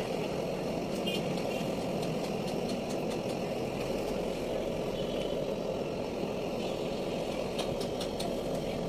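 Steady background drone of engines and traffic, with a few faint clicks of the plastic mirror housing being handled.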